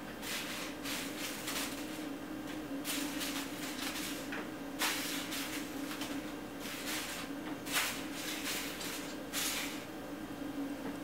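Thin plastic bag crinkling and rustling in short irregular bursts, about six clusters, as a cat paws, bites and bats at it, over a low steady hum.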